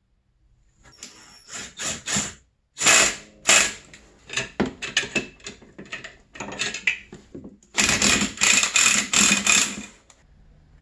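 Irregular bursts of metallic clicking and rattling from hand tools working the snowmobile's flywheel bolts as they are threaded in. The clicking is heaviest near the end.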